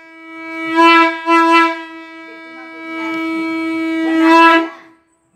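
Conch shell blown in one long held note for the aarti, rich in overtones. It swells about a second in, eases, then swells again near the end before cutting off suddenly.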